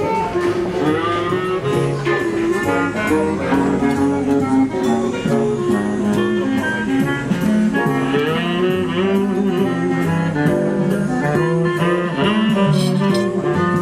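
Instrumental jazz music: a melodic lead line moving over lower bass notes, playing continuously.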